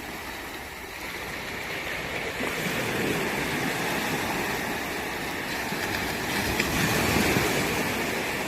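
Rushing water, a steady even wash that grows louder about a second in.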